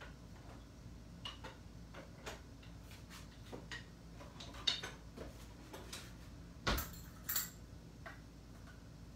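Scattered light clinks and taps of a utensil against a mixing bowl while mixing hush puppy batter, with three louder knocks in the second half.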